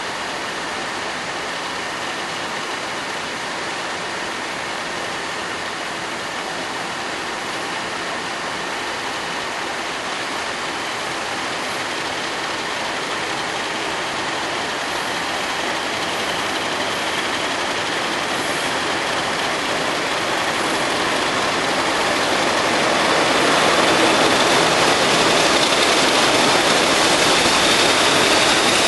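Class 50 diesel locomotive's English Electric 16-cylinder engine running as the locomotive draws slowly closer, getting steadily louder, with high steady whining tones over it that grow stronger in the second half.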